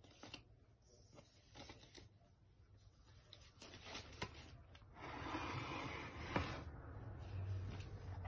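Quiet handling sounds: light taps and clicks as a paper leaflet is lifted off a laptop's lid, then a louder rustle or rub lasting about two seconds with a sharp click in it, about five seconds in.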